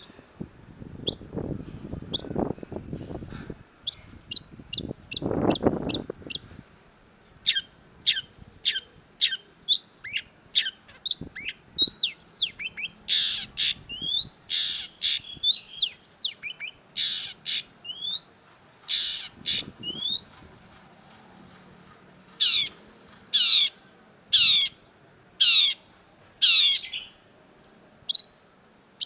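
Long-tailed shrike (cendet) calling in a long series of short, sharp notes that fall in pitch, coming thick and fast in the middle and then as a run of six evenly spaced calls near the end. A low rumbling noise sits under the first few seconds.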